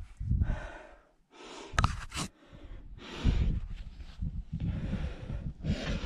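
A climber's hard breathing and gasps in repeated puffs during the ascent, over a low rumble, with a sharp click about two seconds in.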